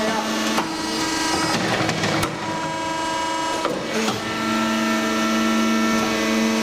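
WEIMA TH 1500 hydraulic briquetting press running on aluminium chips: a steady mechanical hum and whine made up of several held tones, with a sharp click about two seconds in and a change in the tone pattern about four seconds in.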